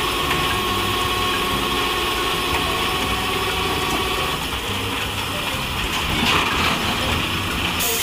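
Heavy tow truck's diesel engine running steadily under load while its boom cables winch an overturned dump truck back onto its wheels, with a thin steady whine that stops about halfway through.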